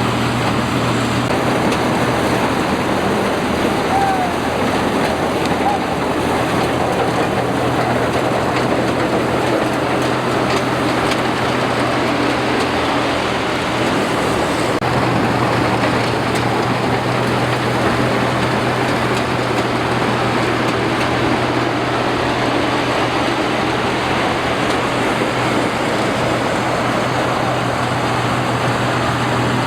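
Combine harvester running steadily: a constant engine hum under a dense, even mechanical noise.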